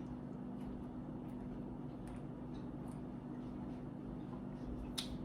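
Low, steady hum of room tone with a few faint, short clicks, one a little sharper near the end.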